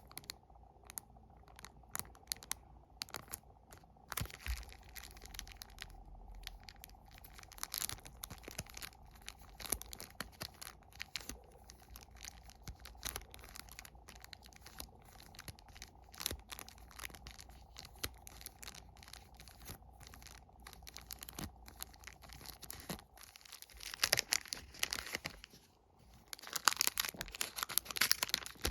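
Plastic wrappers of sticker wafer packs being handled and torn open: scattered small clicks and crinkles, with louder, denser crinkling and tearing near the end.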